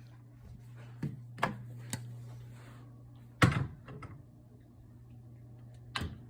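A handful of short knocks and thumps, the loudest about three and a half seconds in, over a steady low hum.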